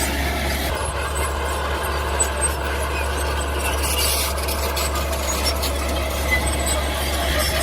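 Mini bulldozer running steadily: a low hum with a steady high whine over it.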